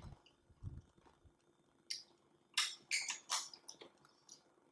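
Faint wet mouth sounds of eating: soft chewing near the start, then a quick run of short smacks from fingers being licked, about two and a half to four seconds in.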